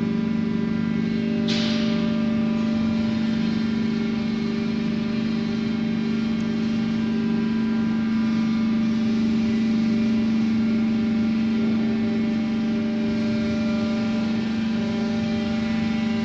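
Hydraulic goods lift's power pack, electric motor and pump, running with a steady pitched hum. A brief hiss sounds about a second and a half in.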